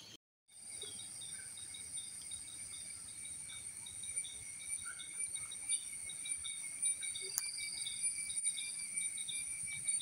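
Insects singing in a steady chorus of several shrill, high tones layered together. The chorus starts about half a second in, after a brief dropout.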